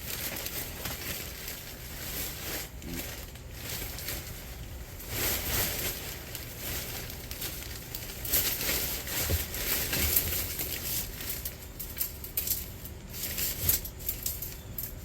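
Scrap wire and appliance cords being handled and sorted by hand: irregular rustling and crinkling with scattered light clicks and clinks.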